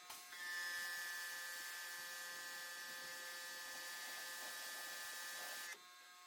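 Pressure washer spraying: a steady hiss of the water jet with a constant mechanical whine, cutting off abruptly near the end.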